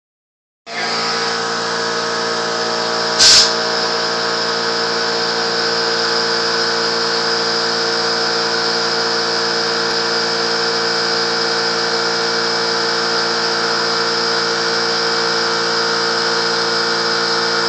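A small motor runs steadily with a constant whine, starting just under a second in. There is a brief loud burst of hissing noise about three seconds in.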